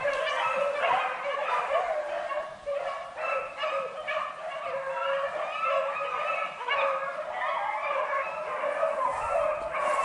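A pack of beagles baying in a continuous overlapping chorus, the sound of hounds running a rabbit on scent.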